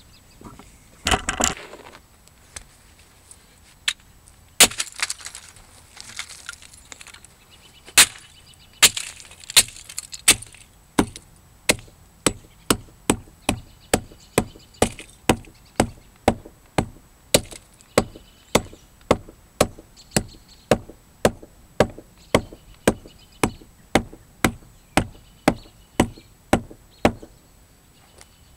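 A hammer beating a CRT TV deflection yoke apart on hard ground. First come a few irregular blows with plastic cracking and breaking. From about ten seconds in there is a steady run of blows, about two a second, that stops shortly before the end.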